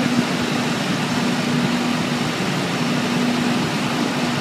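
Ground support machinery beside a jacked-up Airbus A380 running steadily: a broad drone with a constant low hum.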